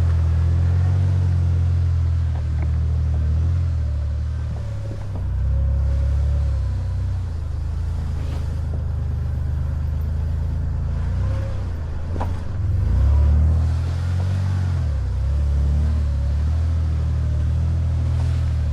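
Off-road vehicle's engine running at low speed with a loud low rumble, its pitch rising and falling several times with the throttle. A sharp knock about twelve seconds in.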